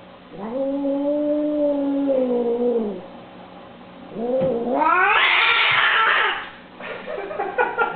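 A domestic cat yowling in two long drawn-out calls. The first is low and steady, dipping at its end. The second, starting about four seconds in, is louder and rises in pitch.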